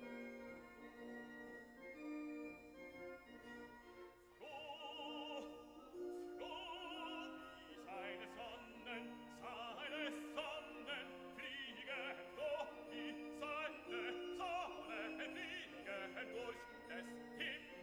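Background classical music in an operatic style. A steady keyboard-like accompaniment plays at first, then about four seconds in a high melody with heavy vibrato enters and carries on over it.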